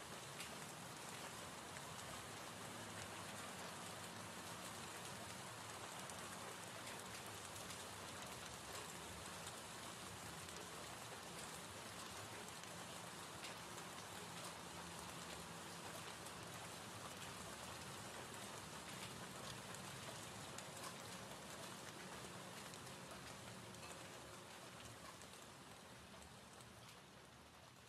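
Faint recorded rain ambience, steady rainfall that fades out near the end.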